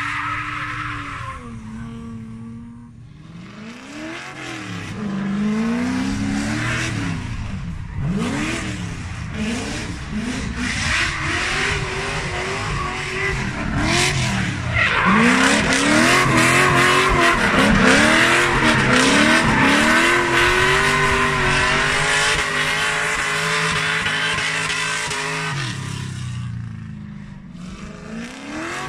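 Drift cars on a track: the engines rev hard, rising and falling over and over as the cars slide, while the tyres screech. It is loudest about halfway through and dies down briefly near the end.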